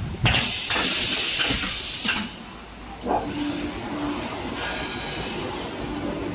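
CNC glass corner grinding machine running: a loud rushing hiss for about two seconds, a brief lull, then a steadier, softer whir with a faint low hum that comes and goes.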